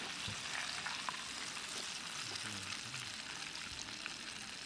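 Battered chicken deep-frying in hot oil in a small cast-iron gamasot cauldron: a steady hissing sizzle with small crackles and pops throughout.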